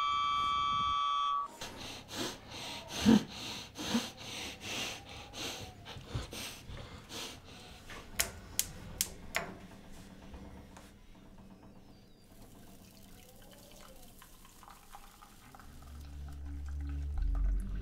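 A steady high ringing tone cuts off suddenly about a second and a half in. It gives way to quiet kitchen sounds: scattered knocks and clatter, a quick run of sharp clicks around the middle, and water trickling from a gooseneck kettle. A low rumble swells in near the end.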